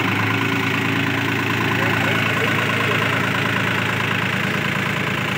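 New Holland 4710 tractor's diesel engine running steadily at an even speed.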